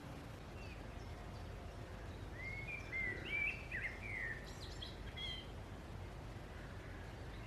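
A songbird sings one short phrase of quick, varied chirps, starting about two seconds in and lasting about three seconds, over faint outdoor background noise.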